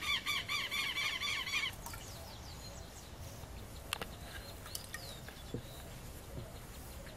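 A bird calling in a rapid run of short, repeated pitched notes, about eight a second, that stops about a second and a half in. Afterwards only a few faint chirps and a single click are heard.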